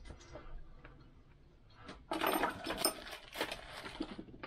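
Small steel parts, nuts and a spanner, clinking and rattling together as they are handled, starting about two seconds in and lasting about two seconds.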